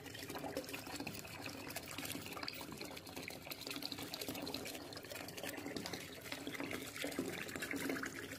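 Water running steadily from a tap into a bathtub as it fills.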